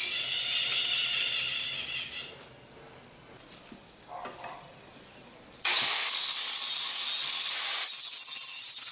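Handheld angle grinder cutting into the steel of a forged knife blade clamped in a vise. It starts abruptly about two-thirds of the way in as a loud, even grinding noise and eases somewhat near the end. Before it there is a hissy noise for the first couple of seconds, then a few light knocks.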